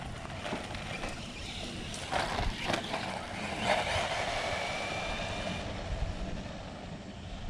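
Small 1/16-scale RC truck with a brushless motor driving off, its motor whine and tyre noise louder for a couple of seconds about two seconds in, over a steady low rumble.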